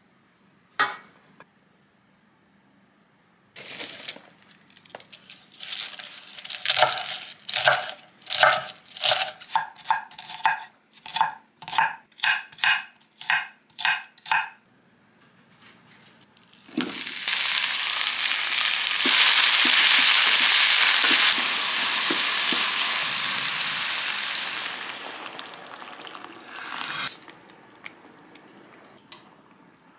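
A kitchen knife chopping cabbage on a wooden cutting board, a steady run of chops about two a second. Then a loud sizzling hiss of food frying in a pan for about ten seconds, fading away near the end.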